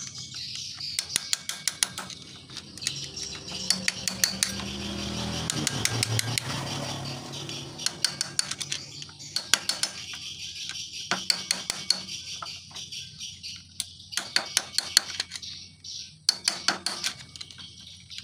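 Repeated sharp metallic taps of a hammer striking a punch held against the centrifugal clutch's lock nut on a Honda Revo engine, coming in quick runs of several blows with short pauses between.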